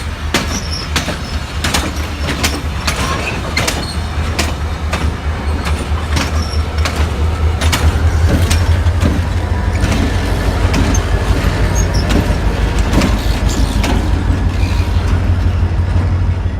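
Amtrak passenger train rolling past: a heavy, steady diesel rumble that builds over the first half, with many sharp clicks of wheels passing over rail joints.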